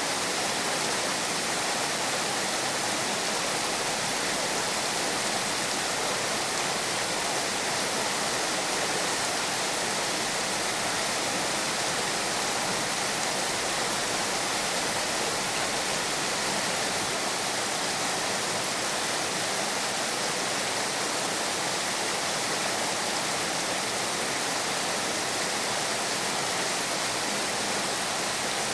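Heavy rain falling steadily: an even, unbroken hiss with no thunder or other distinct sounds.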